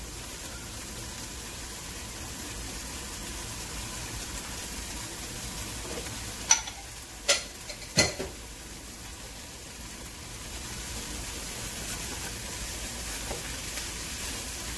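Diced celery, onions and carrots sautéing in a frying pan, a steady sizzle. About halfway through come three sharp knocks, and near the end a spatula stirs the vegetables in the pan.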